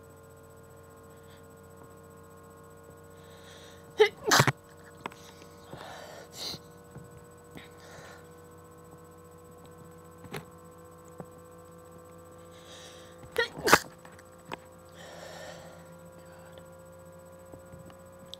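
A person sneezing twice, quiet, held-back sneezes brought on by allergies: one about four seconds in and another about thirteen seconds in, each after a short breathy intake, with fainter breaths and sniffs between.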